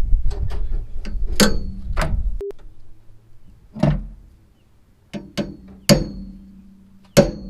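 Hammer striking a steel punch to dimple a crimped battery-cable terminal: about seven sharp blows at uneven spacing, each with a short metallic ring. A low rumble runs under the first blows and cuts off about two and a half seconds in.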